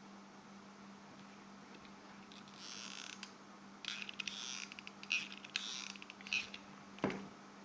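Rustling and scraping of quilled paper rings being handled and glued with a hot glue gun, in several short bursts with small clicks, over a low steady hum. Near the end there is a single dull knock.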